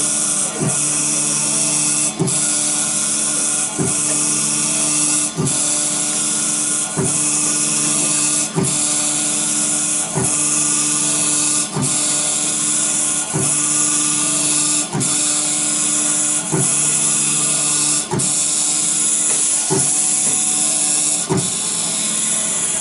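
High-speed spindle of an IC polishing machine grinding down the top of a chip, a steady high whine and hiss. A short click recurs regularly about every one and a half seconds as the cutter works across the chip in passes.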